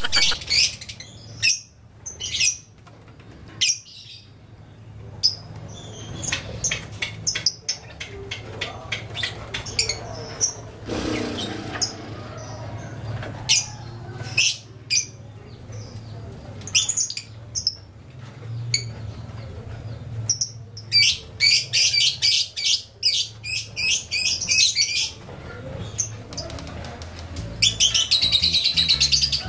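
Young lovebirds chirping with short, sharp high calls, breaking into long rapid chattering runs, one of about four seconds from about two-thirds of the way in and another near the end.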